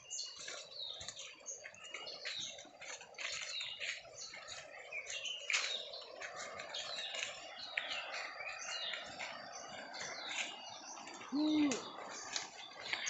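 Small birds chirping: many short, high, downward-sliding chirps repeating over a steady low hiss. A brief low sound, the loudest moment, comes near the end.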